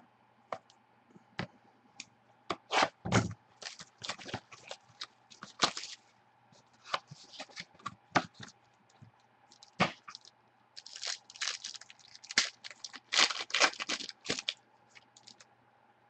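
Plastic wrapping being torn and crinkled as a sealed trading card box is opened, in irregular crackling bursts and clicks, heaviest in two spells, with a faint steady electrical hum underneath.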